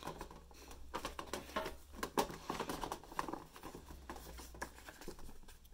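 Faint rustling and scattered light ticks of hands handling sticker sheets and other contents inside a metal lunchbox tin.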